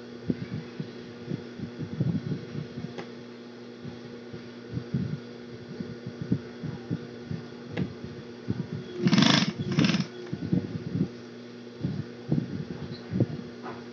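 Industrial sewing machine: its motor hums steadily, and the needle runs in two short bursts of stitching a little after nine seconds in, with scattered soft knocks between.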